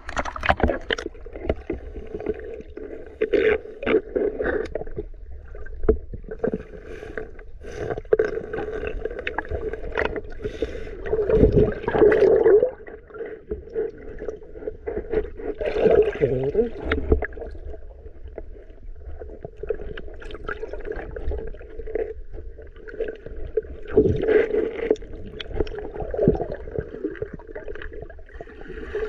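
Muffled underwater sound from a submerged camera in a river: water movement and bubbling, with many small clicks and knocks and a few louder surges.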